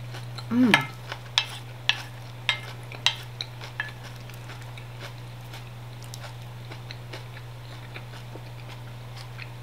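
Spoon and fork clicking and scraping against a plate as salad is tossed and scooped up: a run of sharp taps over the first four seconds, then fainter clinks. A brief hummed 'mm' comes about half a second in, over a steady low hum.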